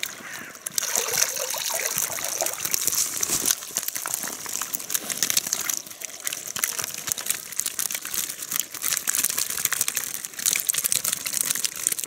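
Water draining out of a mesh keepnet as it is lifted from the lake, then crackling and rustling as the keepnet's wire rings and netting are handled close to the microphone.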